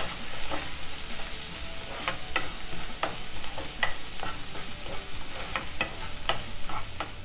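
Chopped shallots sizzling in hot sesame oil in a kadai, with scattered clicks and scrapes of a spatula as they are stirred and sautéed toward golden.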